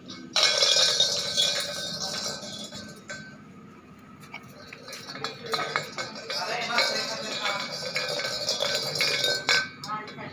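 Small stainless steel pot knocked and pushed about on a concrete floor, clanking with a bright metallic ring. One ringing stretch comes about half a second in, then after a short lull a run of quick clanks from about the middle to near the end.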